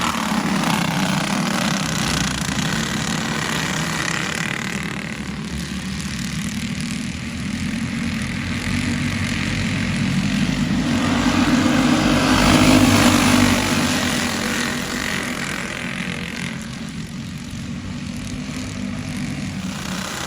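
Several Briggs & Stratton Animal single-cylinder four-stroke kart engines running at racing speed as a pack of karts laps. The sound swells to its loudest about two-thirds of the way through as the karts pass close by, then eases.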